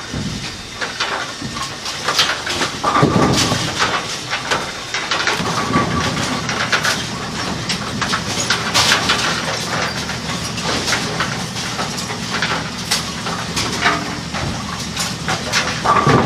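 Kegel Pin Shine bowling-pin cleaning machine running: a steady hissing wash of noise with a low hum that strengthens a few seconds in, and scattered clicks and knocks from the lid and pins being handled.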